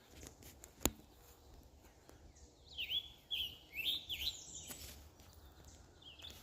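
Scarlet tanager singing: a quick string of about six slurred, burry phrases a few seconds in, with a single sharp click about a second in.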